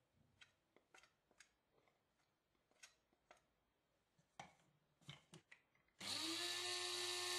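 A few faint light taps, then about six seconds in a Krups electric coffee grinder's motor starts, rising briefly in pitch and then running steadily as it regrinds ogbono seed powder.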